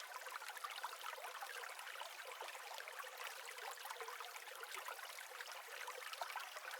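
Faint trickling running water, an even patter of small splashes.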